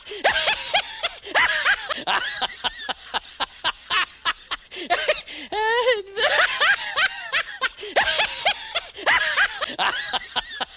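A high-pitched laughing sound effect: a voice giggling and snickering in quick, choppy runs that repeat in a loop about every seven seconds.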